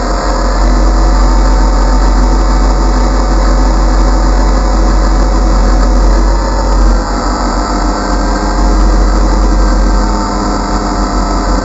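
DJI Phantom quadcopter's motors and propellers whirring loudly and steadily, heard through the GoPro mounted on the drone, with a low rumble underneath. The pitch shifts slightly about seven seconds in.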